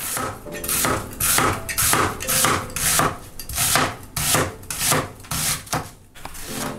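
A Chinese cleaver slicing through an onion onto a plastic cutting board, about two crunchy strokes a second, stopping about a second before the end.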